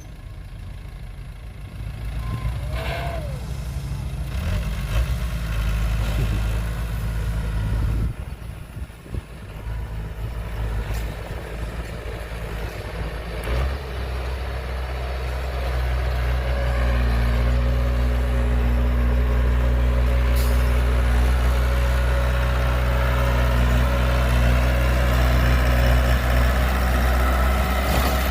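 Heavy diesel engine running with a low, steady drone, growing louder about halfway through and then holding steady.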